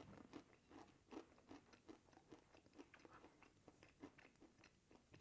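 Faint chewing of a mouthful of baked pasty pastry: a run of small crunching clicks, a few a second.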